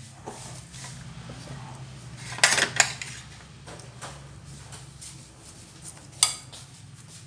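Raw potato-and-minced-pork mixture being worked by gloved hands in a ceramic bowl, with sharp clinks against the bowl: two close together about two and a half seconds in, and one more about six seconds in.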